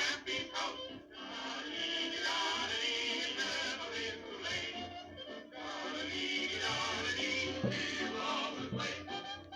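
A cartoon cat character singing a song over music, in long held phrases with short breaks about a second in and about halfway through.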